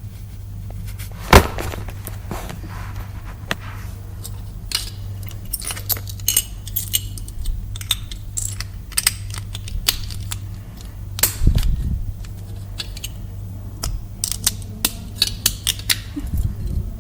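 Small plastic Lego pieces clicking and rattling as they are handled, in scattered clusters, with one sharp louder click about a second in. A low steady hum runs underneath.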